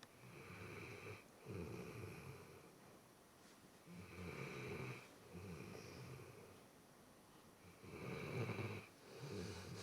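A pet snoring in its sleep in slow, regular breaths. There are about three breaths roughly four seconds apart, each snored in two parts, and the one near the end is the loudest.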